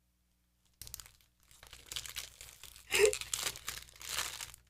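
Plastic Warburtons bread packet crinkling and rustling as it is handled and pulled open. The crinkling starts about a second in, with a short voice sound about three seconds in.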